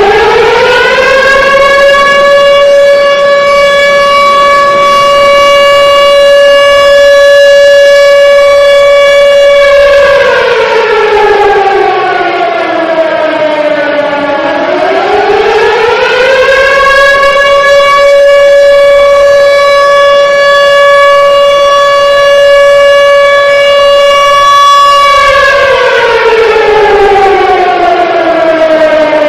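Civil defense warning siren sounding a single very loud pitched tone: it climbs to a high steady note held for about nine seconds, slides down over about four seconds, climbs back up and holds again for about eight seconds, then begins sliding down near the end.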